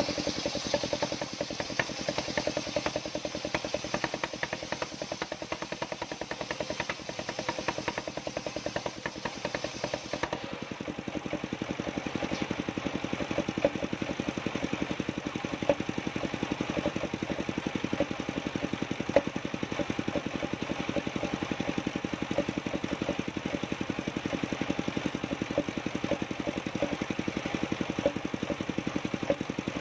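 An engine running steadily at an even speed, a fast, regular pulsing throughout; a higher hiss drops away about ten seconds in.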